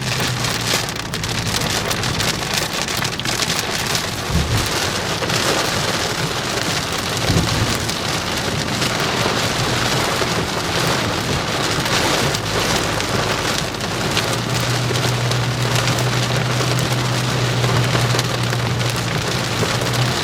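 Heavy rain pelting the windshield and roof of a moving vehicle, heard from inside the cabin, over a steady low drone of engine and road that grows louder about three-quarters of the way through. Two brief low thumps come a few seconds in.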